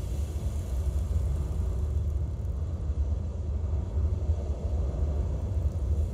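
A deep, steady rumble with a fainter hiss above it, from the electronic tape part of a contemporary chamber piece, played over loudspeakers.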